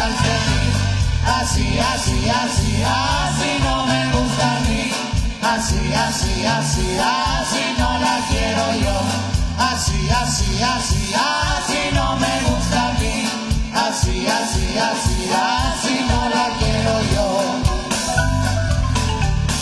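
Marimba orchestra playing continuously, with bass and drum kit keeping a steady beat under a gliding lead melody.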